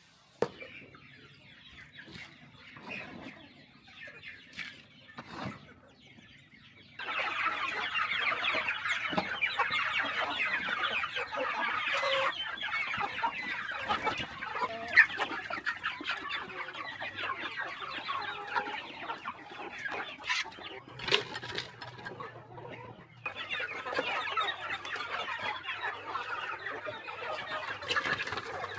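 A flock of hens clucking and chattering, many birds at once. The first several seconds are quieter, with a few isolated knocks, and the dense clucking starts abruptly about seven seconds in, easing briefly and picking up again near the end.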